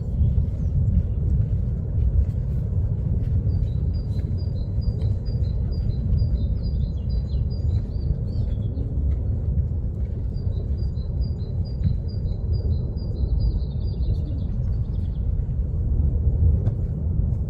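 Steady deep rumble of Kilauea's lava fountain. Over it a bird sings two runs of quick, high, repeated chirps, each about four seconds long.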